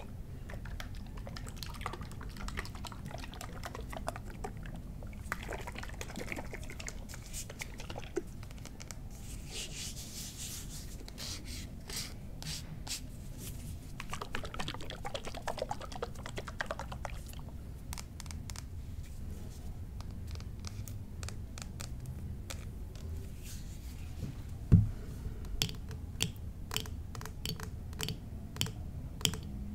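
Tapping and clicking on mini-bar bottles, a quick irregular patter of light taps, with one louder knock about 25 seconds in.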